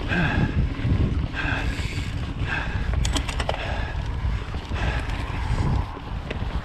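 Mountain bike riding along a dirt singletrack: a steady rumble of wind on the microphone and tyres on the trail, with a few sharp rattles from the bike about three seconds in.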